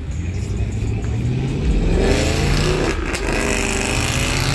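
A car accelerating hard past, its engine revving up in pitch, breaking off about three seconds in and climbing again.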